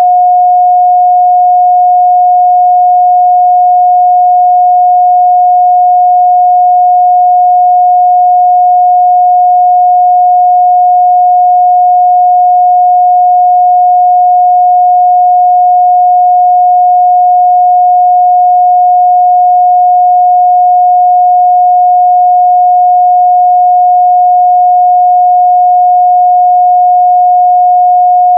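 Steady 721 Hz sine-wave test tone, one pure pitch held without change.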